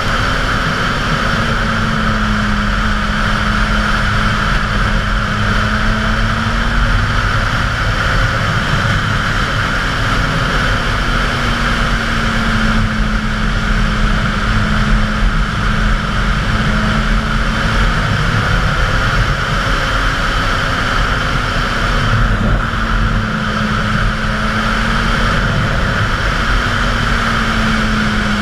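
Suzuki GSX-R 750's inline-four engine running at a steady cruise, its note drifting slowly up and down with the throttle, under a heavy steady rush of wind on the microphone.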